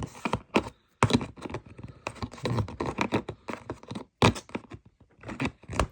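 Sockets and a plastic tool case being handled: quick irregular clicking, clacking and rustling, with one sharp knock about four seconds in.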